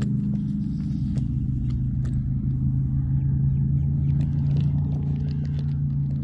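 A steady low machine hum, like a running engine or motor, holding one pitch throughout, with scattered light clicks over it.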